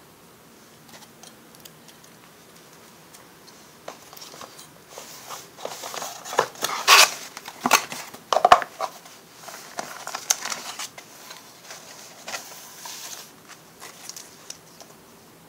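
Hands handling small parts and packaging: irregular rustling, crinkling and clicks that come and go, with the busiest, loudest handling about seven to nine seconds in.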